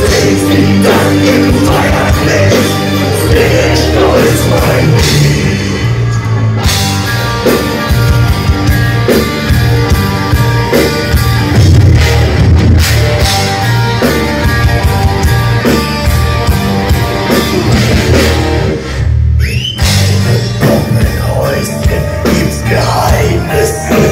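Metal band playing live at full volume: distorted electric guitars, bass and drum kit, heard from the crowd. There is a brief break about nineteen seconds in.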